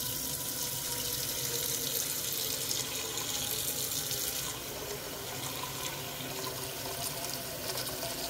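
Kitchen faucet running a steady stream of water into a pot, filling it. About halfway through, the sound becomes a little softer and duller.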